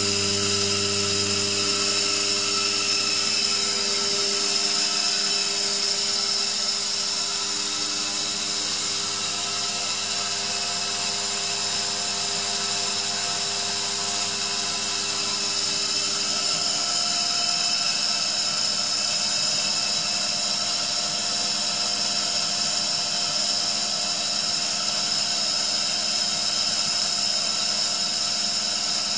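Atlas Copco ZT 22 oil-free air compressor running steadily: an even machine hum with several steady whining tones over a hiss.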